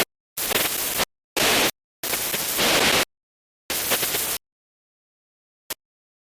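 Voicemod's 'Out of range' sound effect: radio static hissing in abrupt bursts that cut in and out, like a radio signal breaking up out of range. There are four bursts of uneven length with dead silence between them, the longest about a second, then a pause of over a second and a brief blip near the end.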